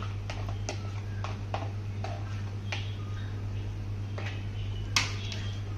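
A spoon scraping and clinking against a bowl and pan as vegetables in white sauce are transferred, in scattered light ticks with one sharper knock about five seconds in. A steady low hum runs underneath.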